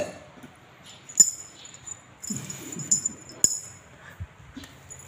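Small metal bells on a thin chain jingling in short bursts: once about a second in, a longer stretch of shaking from about two and a half to three seconds, and a sharp clink about three and a half seconds in.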